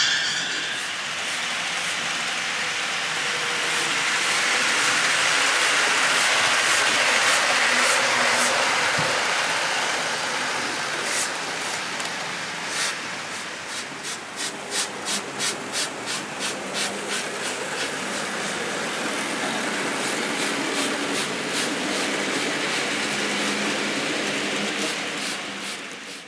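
Model train rolling along the layout's track: a steady rush of small metal wheels on rails, with a stretch of evenly spaced clicks, about two a second, a little past the middle. The sound fades out at the end.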